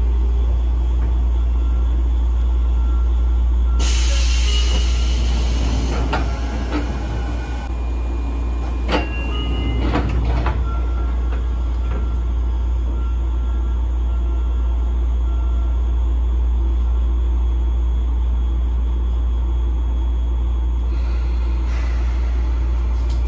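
Sotetsu 9000 series electric commuter train standing at a station, heard from inside the car: a steady low hum of its on-board equipment, a hiss of released compressed air about four seconds in, a few knocks around nine and ten seconds, and another air hiss starting near the end.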